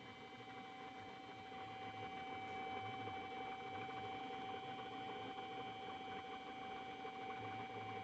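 Wood lathe running steadily, its motor giving a constant whine over a light rushing noise that grows a little louder about a second and a half in.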